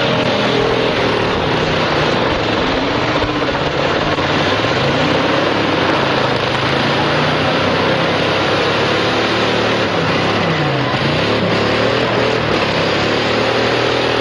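Several demolition derby car engines running and revving at once, their pitch rising and falling, over a constant wash of noise.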